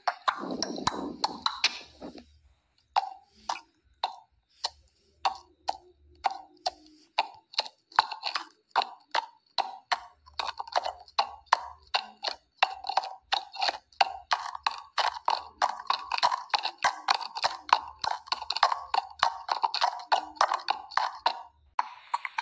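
Horse hoofbeats, a hollow clip-clop sound effect, one or two beats a second at first, then quickening into a fast run from about ten seconds in. A short low noise comes before them at the start.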